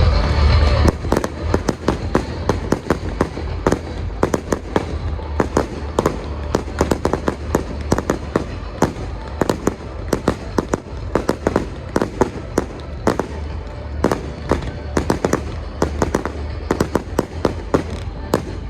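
Fireworks display: a rapid, irregular stream of sharp cracks and bangs, several a second, over a steady low rumble. A heavy-bass music track is heard for about the first second, then gives way to the fireworks.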